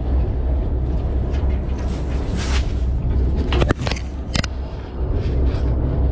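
Steady low rumble of a fishing boat's engine, with a few short sharp knocks near the middle.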